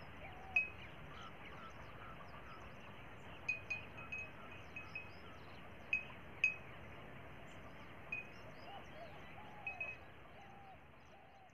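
A stone tied on a string knocking against a hanging glass beer bottle as the wind swings it: about a dozen short glassy clinks at irregular intervals, each ringing briefly at one high pitch, the loudest about six and a half seconds in. It is a homemade wind-driven scarer meant to keep birds and nilgai off the crop.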